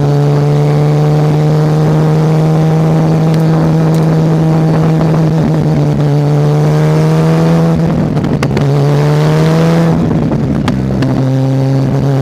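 Mazda RX-7 rotary engine running hard at high revs, its note climbing slowly. About two-thirds of the way through, and again about a second later, the note breaks briefly and drops, then climbs again, as at gear changes.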